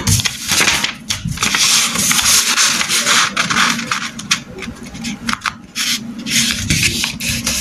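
A sheet of origami paper being rolled into a tube under the hands and rubbed against the tabletop: loud paper rustling and rubbing in uneven strokes.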